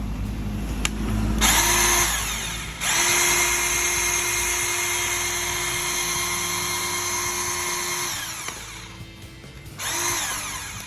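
Makita DPB182Z 18V cordless portable band saw running with no load. The motor starts about a second and a half in, stops for a moment, then runs steadily for about five seconds before winding down. It is run again briefly near the end.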